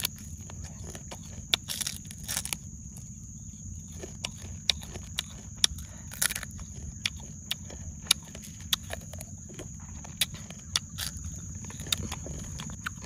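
A person chewing crispy fried rhinoceros beetles: sharp, irregular crunches about once a second or faster, over a steady high-pitched hiss.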